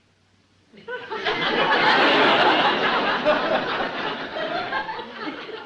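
A short pause, then an audience laughing for several seconds, easing off slightly near the end.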